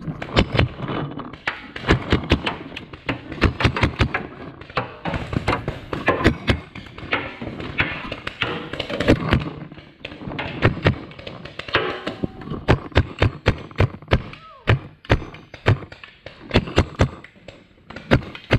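Paintball markers firing in a running paintball fight: rapid, irregular sharp pops, several a second, some close and loud, others farther off.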